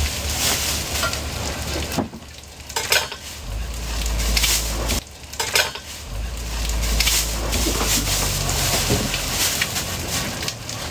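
Food sizzling as it fries on a hot pan, with metal utensils clinking and scraping now and then. The sizzle drops off briefly twice.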